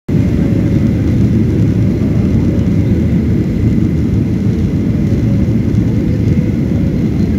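Airliner cabin noise heard from a window seat over the wing on approach to landing, flaps extended: a loud, steady low rumble of engines and airflow with a faint steady high whine.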